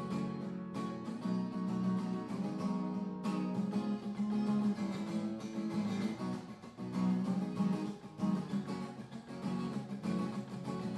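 Takamine acoustic guitar played solo: chords strummed and picked without singing, an instrumental break within a song.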